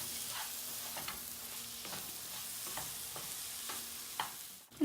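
Onion-tomato masala sizzling in hot oil in a pan while it is stirred, with scattered scrapes and taps of the stirring spoon against the pan. The sound briefly drops out near the end.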